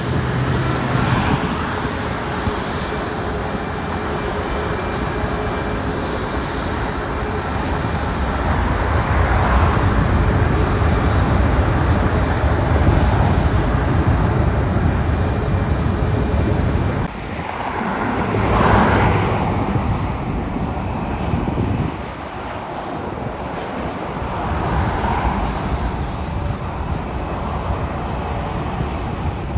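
Steady roar of road traffic, with single vehicles swelling past every few seconds. The sound drops abruptly twice, about halfway through and again some five seconds later.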